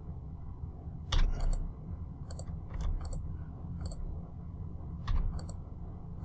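Scattered computer keyboard keystrokes and clicks while working in the software, about nine sharp taps at irregular spacing, the loudest about a second in, over a low steady hum.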